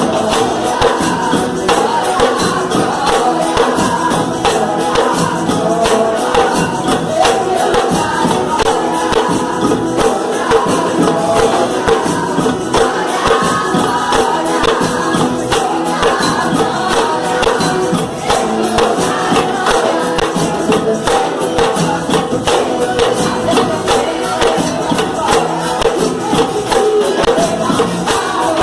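A church percussion group playing a fast, dense beat of rapid strikes, with voices singing over it.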